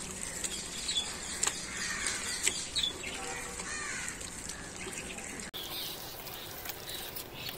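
Wet squelching and sloshing of a hand kneading cow dung into cow urine in a plastic bucket, with scattered small clicks. Birds chirp in the background.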